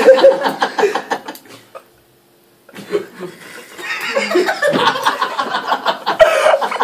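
People laughing hard: a burst of laughter, a brief pause about two seconds in, then louder, longer laughter.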